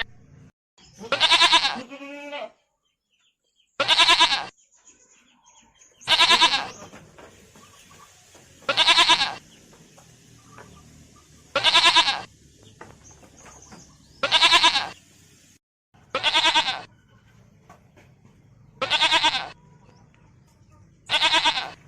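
A farm animal bleating over and over: about nine quavering calls, each under a second long, spaced two to three seconds apart.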